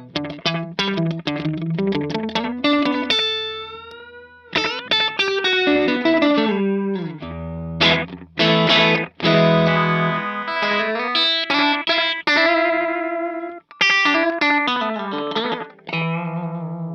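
Fender Stratocaster electric guitar played through a lightly overdriven Sonicake Echo Rain delay pedal into a Vox AC30 amp: runs of picked notes and chords trailing off in smooth delay repeats, with one held note bending in pitch a few seconds in.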